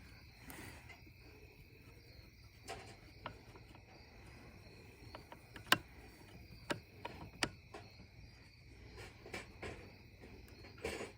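Faint steady chirring of crickets, with scattered small sharp clicks and taps from a tool and the bolts as the air filter cover bolts on a Stihl FS91R trimmer are tightened.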